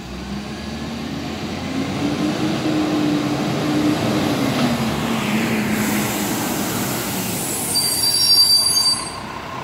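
Iveco side-loader garbage truck approaching, its diesel engine note rising and then easing off as it slows. Near the end its brakes squeal loudly as it pulls up at the bin.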